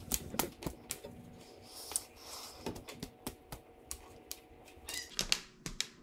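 Scattered light clicks and taps of hands handling a fishing hook and line as a Palomar knot is pulled tight, coming in irregular bunches, most thickly near the start and again about five seconds in.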